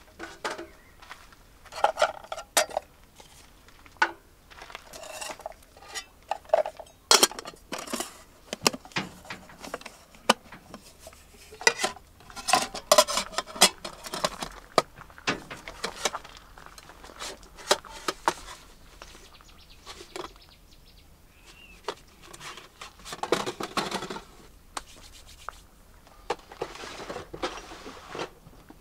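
Camping cookware and utensils being handled: irregular clinks and clatters in bunches, with quieter handling sounds between.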